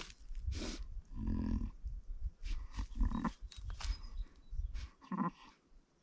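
A ewe bleating low and short, three calls about two seconds apart.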